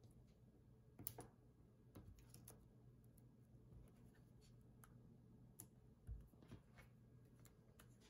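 Faint, scattered small clicks and rustles of a paper sentiment strip being handled and pressed down on a cutting mat, with foam adhesive squares being fitted behind it; otherwise near silence with a low hum.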